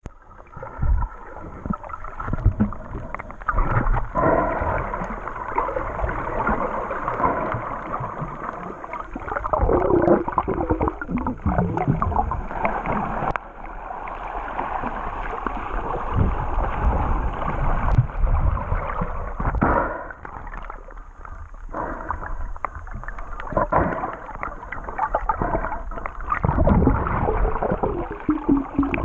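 Water sloshing and gurgling against a camera held just below the surface, muffled and irregular, swelling and dipping in loudness with small clicks throughout.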